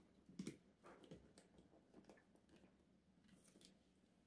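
Near silence, with a few faint rustles and clicks of paper banknotes and a ring binder being handled.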